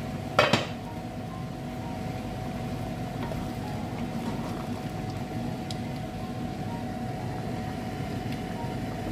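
An aluminium pot lid clanks as it is lifted off a large stockpot, once, about half a second in. Then a wooden spoon stirs the simmering beef and onion curry, with a few faint knocks, over a steady hiss from the gas hob and the pot.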